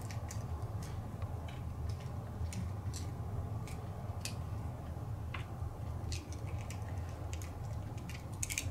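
Fingers cracking and picking apart the thin shell of a small Hatchimals toy egg: irregular small clicks and crackles, bunching up near the end, over a low steady hum.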